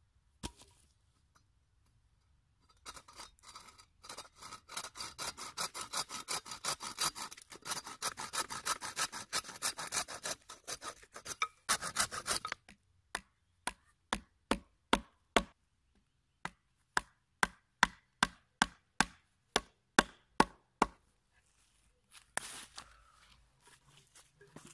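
Bow saw cutting through a thin log with quick, rhythmic back-and-forth strokes for about ten seconds, followed by a run of separate sharp clicks, about three a second.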